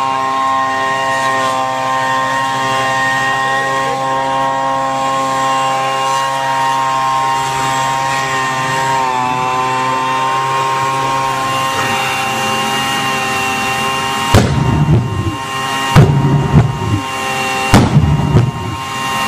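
Leaf blower running with a steady whine, then, about fourteen seconds in, a homemade pulse jet fed air by the blower lights up and fires in loud, irregular pops and bangs.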